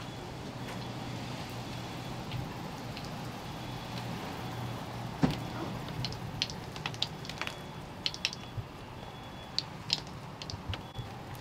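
Rain and dripping water around a storm-wrecked building, with a scatter of sharp drip ticks in the second half and one louder knock about five seconds in, over a steady low hum.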